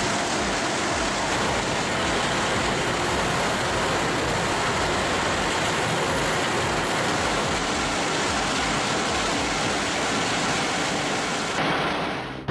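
Heavy wood-processing machinery running: a loud, steady, even mechanical noise with a fast low pulsing underneath.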